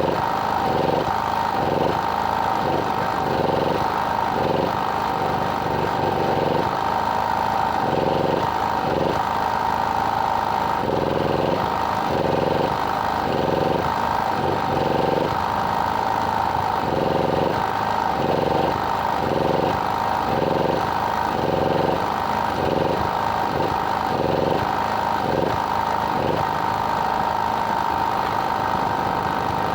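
An engine running steadily, with a lower pulsing that comes and goes about once or twice a second.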